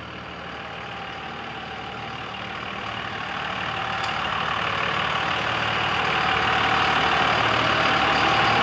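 Lifted second-generation Dodge Ram's Cummins diesel running as the truck drives in and pulls up close, growing steadily louder as it approaches.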